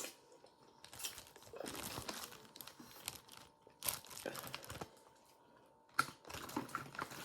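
Crab legs being cracked and shelled by hand: irregular crackling and crinkling in several bursts with short quiet gaps.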